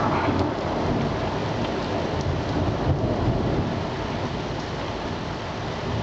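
Thunder rumbling over a steady hiss of rain, easing off slightly toward the end.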